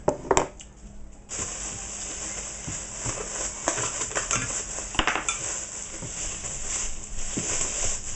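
Plastic bag crinkling and rustling as hands work inside it, with a couple of sharp clicks just before the rustling starts.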